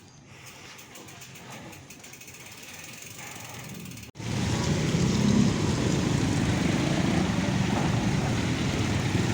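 Faint background noise, then after an abrupt cut a loud, steady rumble of road and vehicle noise from travelling along a road.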